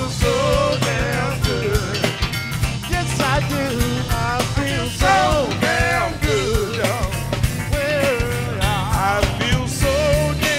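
Blues-rock band playing over a steady beat, with a lead line that bends and wavers in pitch.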